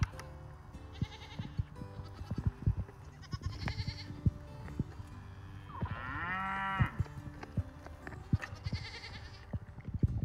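A Nigerian Dwarf goat gives one drawn-out bleat about six seconds in. Irregular clicks and knocks sound around it as the goat feeds from a plastic feed pan on a milking stand.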